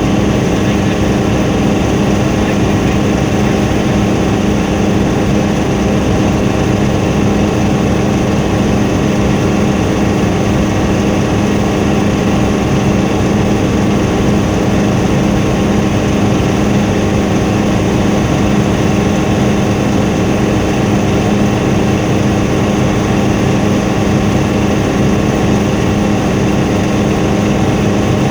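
Helicopter engine and rotor noise, loud and steady, with a strong low hum.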